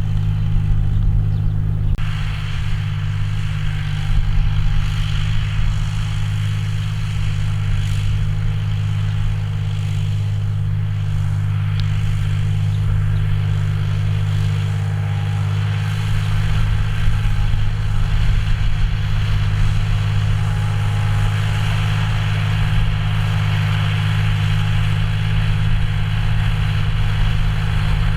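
John Deere 5045D tractor's three-cylinder diesel engine running at a steady speed with a constant low drone.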